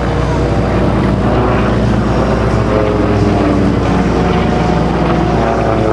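Aerobatic propeller plane's piston engine running at display power overhead, a steady drone whose pitch slowly slides down and back up as it manoeuvres.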